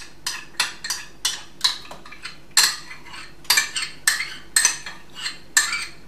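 A spoon clinking and scraping inside a small cup as the last of the cuajada is scooped out into a saucepan: a quick, even run of clinks, about three a second.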